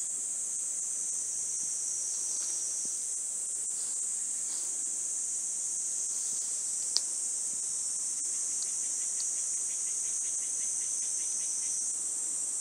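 Steady high-pitched insect chorus. A single sharp click about halfway through, and a faint rapid ticking near the end.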